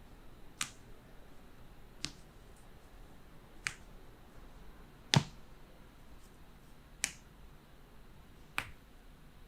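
Six sharp clicks about a second and a half apart, typical of the drop section of a chiropractic drop table giving way under repeated thrusts. The loudest, about halfway through, carries a deeper thud.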